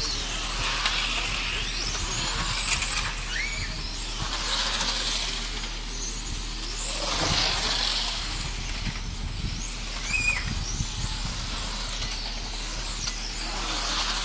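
1/10-scale electric radio-controlled racing cars lapping a track: a high motor whine that swells and fades in waves as the cars pass, rising and falling in pitch as they accelerate and brake.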